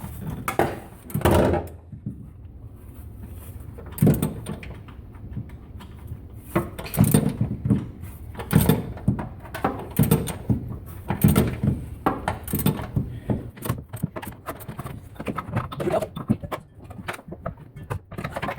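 Hand tools clinking and knocking on metal in irregular bursts while the rear shock absorber's top mount nuts are undone on a Mazda Miata.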